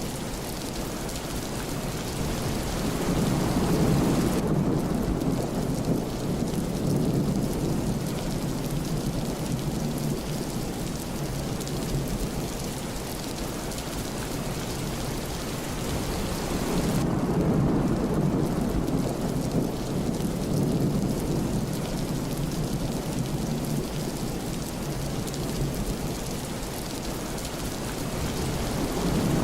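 Steady rain falling, with rolling thunder rumbling low underneath. The thunder swells twice, and a third roll starts near the end.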